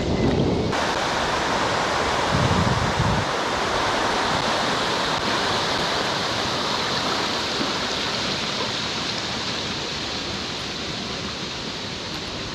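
Rushing river water, a steady hiss that slowly fades toward the end, with a brief low rumble about two seconds in.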